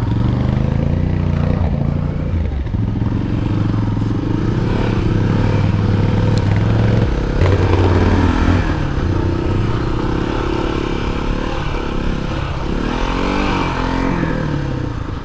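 Kawasaki KLR 250's single-cylinder four-stroke engine running under load while riding a dirt trail, its pitch holding and then stepping as the throttle and gears change, with a rising rev near the end.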